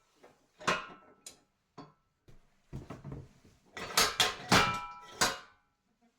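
Steel clanks and knocks from a manual tire changer's bead breaker being handled and set against the tire, a string of separate metal hits, some ringing briefly, with a cluster of louder clanks about four seconds in.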